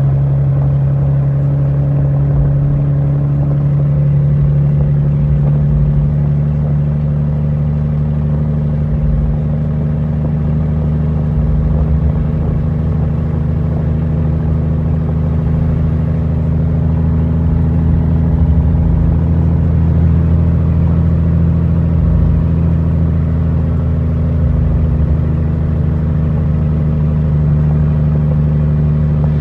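International 9200's Cummins M11 inline-six diesel running steadily at constant revs under way, heard from inside the cab, with a steady drone that holds one pitch throughout.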